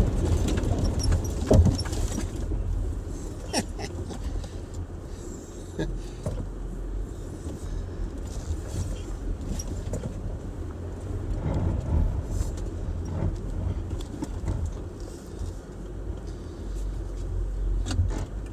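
Land Rover LR4 heard from inside the cabin, creeping along a rutted mud trail: a steady low rumble of engine and tyres, with scattered knocks and light rattles as it rolls over the ruts.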